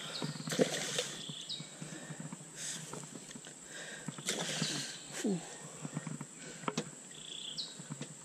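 A hooked black bass splashing and thrashing at the surface beside a small boat as it is brought to hand, with irregular sharp splashes and knocks. A steady high whine and a few short chirps sound behind it.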